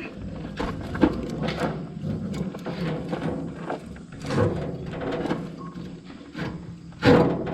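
Metal clanks, knocks and scraping from hand tools working on a combine's cutter bar, loudest near the end, over a steady low hum.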